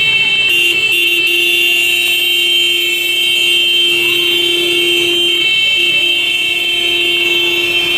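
Vehicle horns held in one long, loud, steady blast. A lower-pitched horn cuts out briefly a little past the middle and then sounds again.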